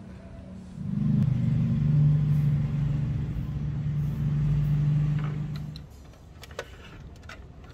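A motor runs with a steady low hum for about five seconds, starting suddenly about a second in and cutting off near the end, followed by a few light clicks.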